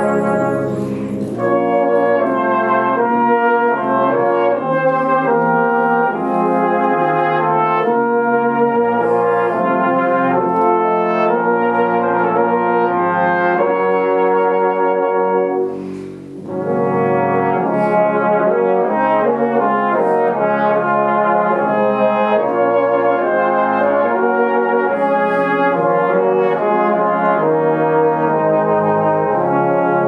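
A full brass band of cornets, trombones, euphoniums and tubas playing together in sustained chords. The sound thins briefly about halfway through before the whole band comes back in.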